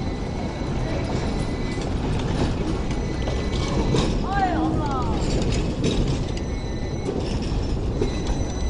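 Hong Kong double-decker tram passing close by on steel rails, its wheels and running gear rumbling and clanking steadily over the track, with a short high squeal about halfway through.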